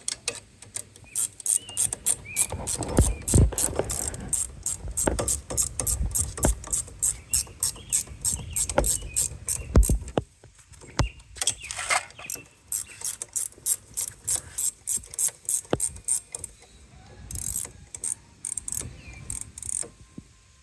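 Ratcheting wrench clicking in quick runs of about three to four clicks a second as a bolt is run in, with short pauses and a few heavier knocks of metal on metal.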